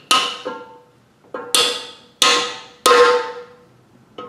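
Hammer blows on metal, with four strong ringing strikes about two-thirds of a second apart and a few lighter taps between. They are driving a part out of an NV4500 manual transmission case during teardown.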